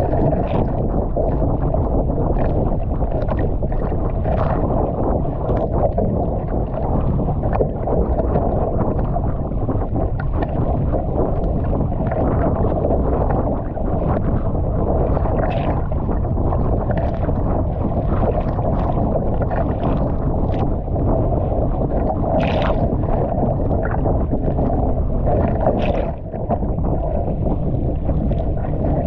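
Water rushing and slapping against a kayak's hull in choppy sea, with wind rumbling on the microphone. Short splashes from the paddle strokes come about once a second.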